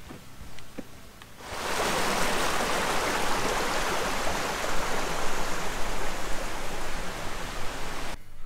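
Faint footsteps for the first second or so, then running water of a forest stream rushing steadily. The rushing starts suddenly about a second and a half in and cuts off abruptly just before the end.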